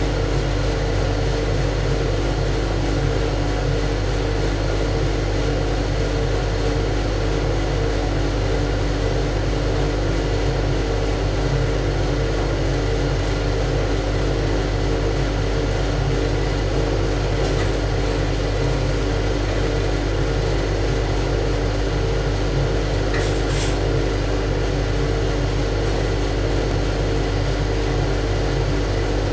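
Ship's engine-room machinery running with a loud, steady drone: a deep hum and several constant held tones, unchanging throughout.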